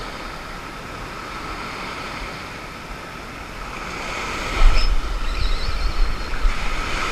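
Ocean surf breaking and washing up the beach, a steady rushing wash. About halfway through, wind buffeting the microphone sets in and makes it louder.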